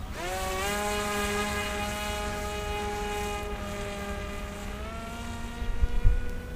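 Electric motor and propeller of a small foam RC plane spinning up sharply at the hand-launch, then running as a steady whine as it climbs away. About five seconds in the pitch rises again as the throttle is opened further, and a few low thumps come near the end.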